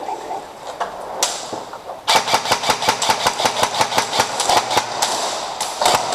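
Airsoft guns firing a rapid string of sharp shots, about seven a second. The string starts about two seconds in and runs for three and a half seconds, then a short second burst follows near the end.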